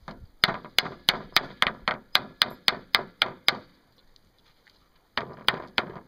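A small wooden stick hitting a freshly sawn wooden board again and again, about three or four quick strikes a second, stopping for a moment and then starting again near the end.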